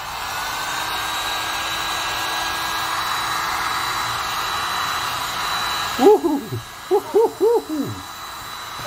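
Heat gun blowing steadily with a faint whine as it warms a stick-on grip wrap on a pistol frame. About six seconds in its noise drops, and a man's voice hoots "woo" four times in quick rising-and-falling calls.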